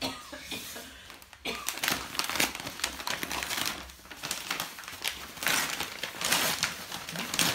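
Gift-wrapping paper crinkling and tearing as a present is pulled open by hand: irregular rustling and crackling that becomes dense about a second and a half in.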